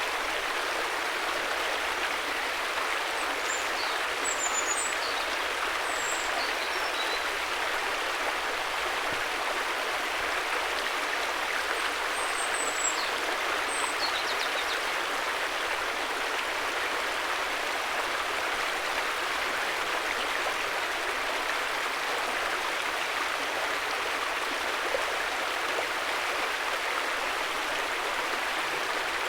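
River water flowing, a steady even rushing with no change in level. A few faint high chirps sound over it in the first half.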